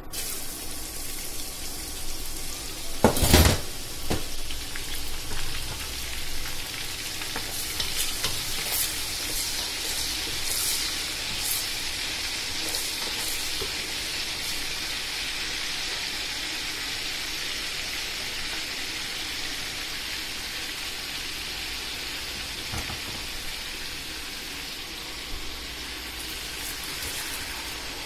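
Food frying in hot oil, a steady sizzling hiss, with one loud knock about three seconds in and a few light clicks of a utensil over the next several seconds.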